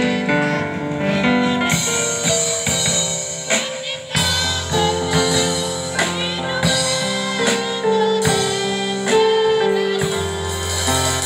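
A women's choir singing into microphones, accompanied by an electronic keyboard playing held chords and a steady beat.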